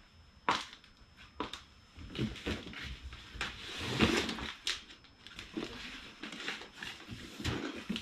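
Cardboard box being handled and opened: sharp taps and knocks, then irregular rustling and scraping of cardboard.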